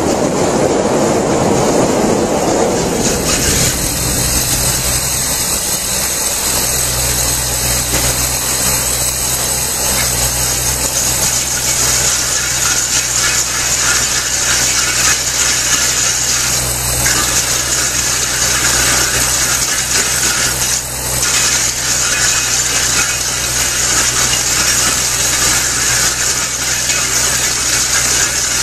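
Excavator-mounted twin-drum cutter grinding into a concrete wall, a steady harsh scraping over the constant drone of the excavator's engine and hydraulics.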